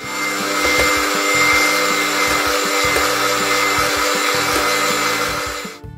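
Electric hand mixer running steadily, its beaters whisking eggs and powdered sugar into a batter; it switches off just before the end.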